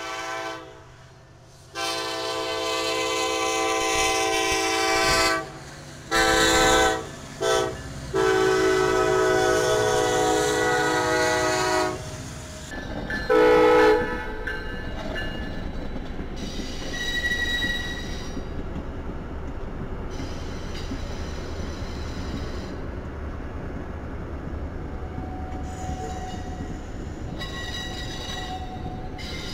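Diesel locomotive air horn sounding the grade-crossing signal: two long blasts, a short one and a final long one. Then a short loud horn note from an Amtrak passenger train, followed by the steady rumble of its cars rolling past with faint wheel squeal.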